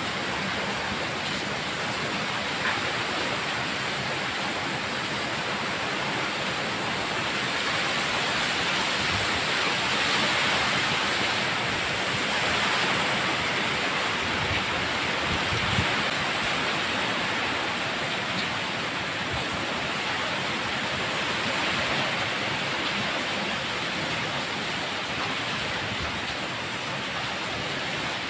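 Typhoon rain pouring heavily in a steady rush, with gusting wind that makes it swell now and then, most strongly about ten and thirteen seconds in.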